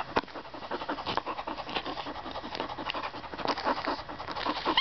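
Black Lab puppy panting rapidly, several short pants a second, with a squeaky toy held in her mouth. A brief sharp high-pitched sound comes at the very end.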